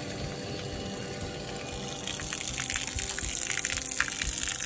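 Rule-Mate RM800B automatic bilge pump pumping water out of the boat, its discharge gushing from the transom outlet and splashing onto gravel. The splashing grows louder and crackly from about two seconds in.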